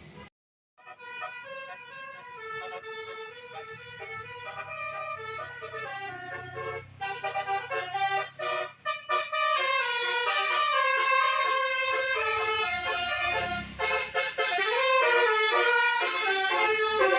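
Indonesian bus telolet horn, a multi-tone air horn playing a quick melody of stepped notes, with a bus engine running low underneath. It grows louder in the second half.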